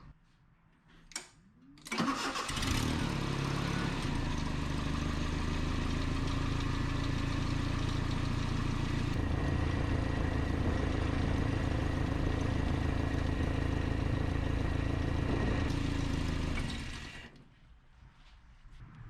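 Nissan Z24 2.4-litre four-cylinder engine in a 1988 D21 truck started up, running steadily for about fifteen seconds, then switched off and dying away. The engine is being diagnosed for a rough, surging idle. A single click comes just before the start.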